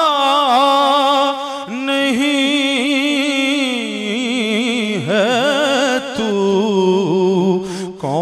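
A man singing a devotional hamd (Urdu/Punjabi kalam) solo. He draws out long, held notes with heavy wavering ornament in the pitch and dips briefly between phrases.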